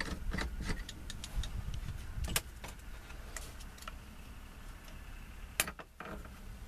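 Light metallic clicks and clinks of small parts and hand tools being worked in a steering column as it is taken apart. They come thickest in the first couple of seconds, with two sharper clicks about two and a half and five and a half seconds in.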